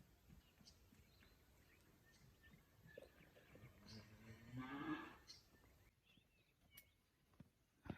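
A single moo from cattle, one call of about a second and a half that rises in pitch, around the middle.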